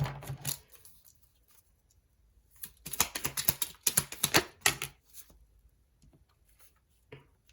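A deck of angel oracle cards shuffled and handled by hand: a dense run of quick dry clicks and slaps lasting about two seconds in the middle, with a short clatter at the start and a few single taps near the end.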